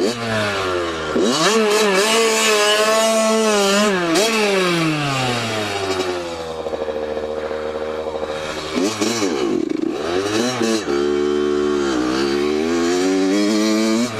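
Dirt bike engine being ridden and revved, its pitch rising and falling with the throttle: it climbs over the first couple of seconds, holds, then drops away and runs low for a few seconds, and picks up again twice near the end.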